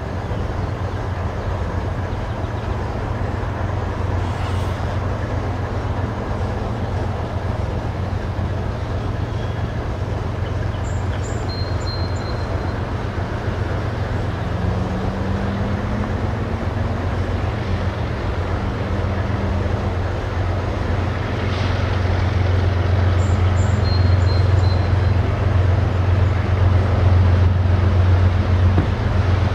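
The diesel locomotives at the head of a freight train draw near, giving a steady low engine drone that grows louder in the last third.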